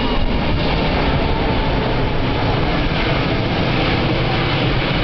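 Airbus A380's four Rolls-Royce Trent 900 turbofan engines at takeoff power: a loud, steady jet rumble with a faint high whine running through it.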